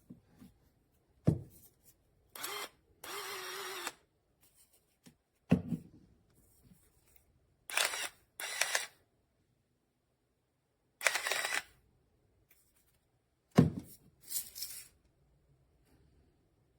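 ThermoMaven electric salt and pepper grinder's motor running in several short bursts of about half a second to a second each, with sharp knocks from handling between them.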